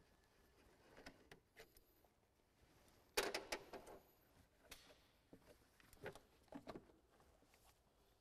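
Faint handling noises from gloved hands working a car's plastic air intake duct and air-filter housing loose: scattered clicks and rubbing, with a louder clatter about three seconds in and a few more knocks about six seconds in.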